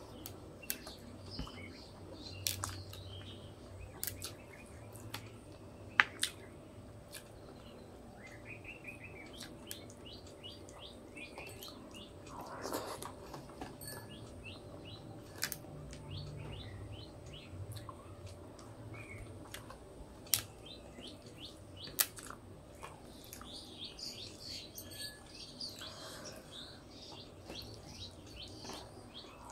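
Close-up eating sounds of rice and egg curry eaten by hand: sharp wet mouth clicks and smacks while chewing, the loudest a few single snaps. Birds chirp in the background in several short trilling runs.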